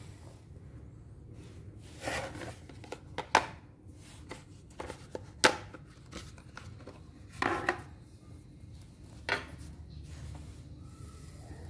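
Electric disc sander's 220 V motor running with a steady low hum, the sanding disc turning. Over it come a few sharp clicks and short scrapes of metal being handled on the sander's table.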